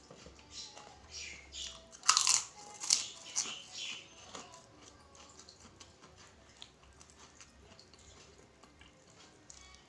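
Close-miked eating sounds: a plastic spoon working in a styrofoam food box and chewing of kupat tahu. A few short, loud noises come about two to four seconds in, then only quieter chewing.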